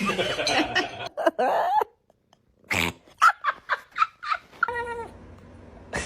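A cat making odd calls: a rough call at the start, then after a short pause a quick run of short pitched calls, and one long, steady meow near the end.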